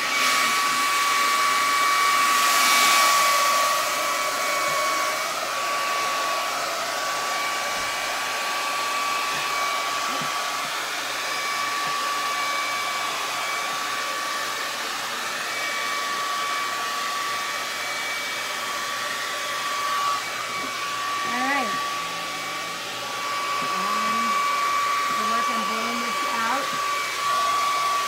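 Handleless handheld hair dryer running steadily on high: a continuous rush of air with a steady motor whine. It swells louder for a moment about three seconds in.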